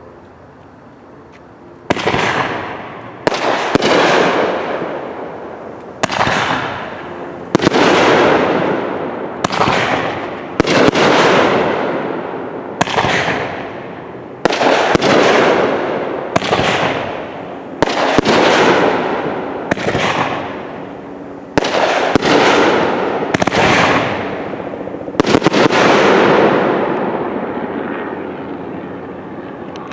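Phantom Fireworks Double Take 500-gram finale rack firing its nine shots, each with a double burst. About two seconds in it starts a string of about eighteen sharp bangs over some 25 seconds, each trailing off over a second or two.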